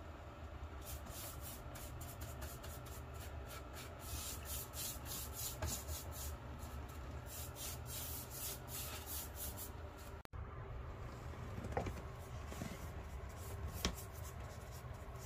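A flat paintbrush swishes varnish along wooden rails in quick, repeated back-and-forth strokes, with a momentary break about two-thirds through.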